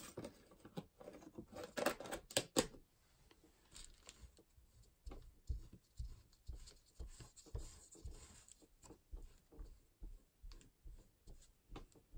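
Wet wipe rubbing ink off a clear acrylic stamp block in short, repeated scrubbing strokes, after a brief crackly rustle as the wipe is pulled out in the first few seconds.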